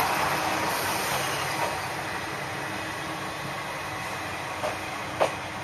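Kanto Railway KiHa 2100-series diesel railcar rolling slowly away along the platform as it arrives, its engine and wheel noise fading. Two sharp metallic clicks near the end, the second louder.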